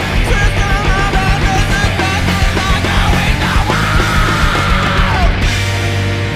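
A post-punk band playing a loud, driving rock song, with guitars, bass and busy drums. A wavering lead line, probably a shouted voice, runs over the band and holds a long high note that bends down near the end.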